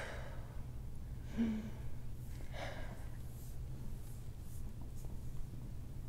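A person breathing out audibly in a few sighs, with a short murmur about a second and a half in, over a steady low background hum.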